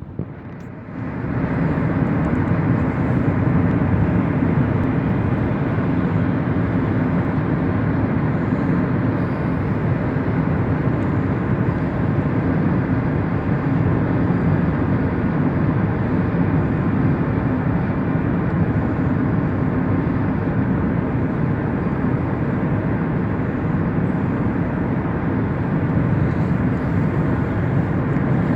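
Car travelling at highway speed: steady road and tyre noise with engine rumble, coming up to full level about a second in and then holding even.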